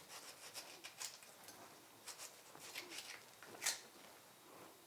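Knife slicing a tomato on a cutting board: faint, scattered taps and clicks, with one sharper click about three and a half seconds in.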